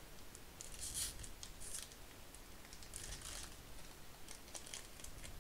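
Wrapper of a Topps baseball card pack being torn open by hand and crinkled: short crackly rips and rustles, loudest about a second in and again about three seconds in.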